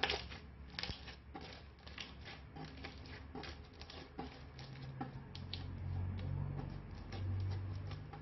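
Slime being pressed and kneaded by hand, giving a quick, irregular run of small sticky pops and crackles as air pockets burst. A low hum comes in about halfway through.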